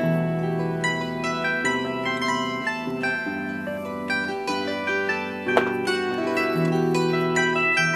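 Background instrumental music of plucked strings, a run of short notes one after another.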